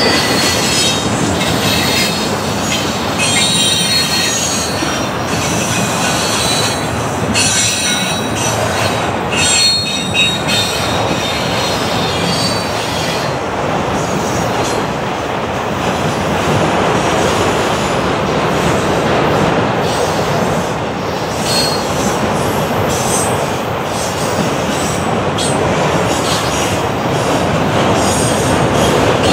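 Freight train cars, double-stack container cars then enclosed autoracks, rolling steadily past close by: a continuous rumble of steel wheels on rail, with high-pitched wheel squeals coming and going.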